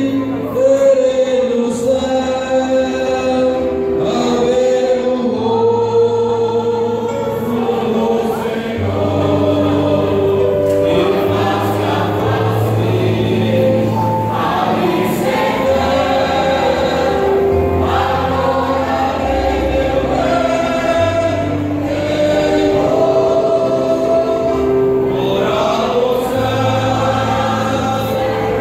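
Mixed choir of men and women singing in parts, holding long notes that change every second or two.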